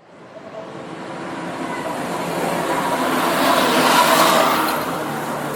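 Road traffic noise fading in, with one vehicle passing close by, loudest about four seconds in, before settling back to a steady traffic hum.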